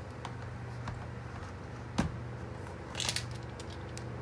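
Small handling noises of a metal ATV brake caliper and its parts in a plastic drain pan: a few faint clicks, a sharp knock about two seconds in, and a brief rustle about a second later, over a steady low hum.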